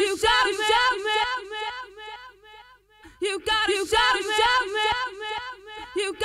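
Intro music with a vocal-like melody in quick repeated notes. The phrase fades away about two seconds in and starts again with a sharp hit a little after three seconds in.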